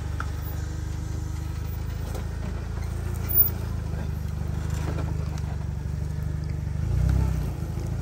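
Jeep Wrangler TJ's engine running low and steady as the Jeep crawls down a rock slab, with one sharp knock about three and a half seconds in and a brief rise in engine sound near the end.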